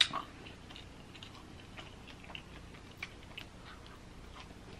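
A person chewing fried chicken: faint, scattered small mouth clicks and smacks, with one sharper click right at the start.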